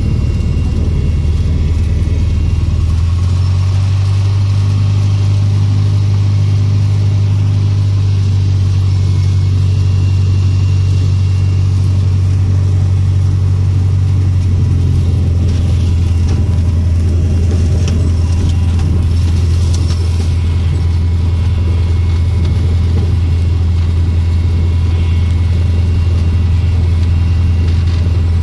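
Cessna 150's Continental O-200 four-cylinder engine running at low taxi power, heard inside the cabin as a steady low drone. The engine note rises slightly about three seconds in and settles lower again about halfway through.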